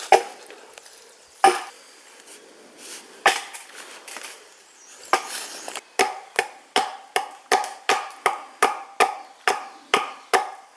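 Wood being chopped by hand: a few spaced strokes, then from about six seconds in a steady run of quick strokes, nearly three a second.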